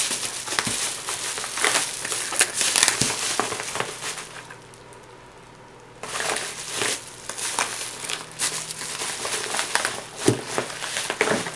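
Packaging being crumpled and crinkled by hand in irregular crackles, going quiet for about a second and a half midway before resuming.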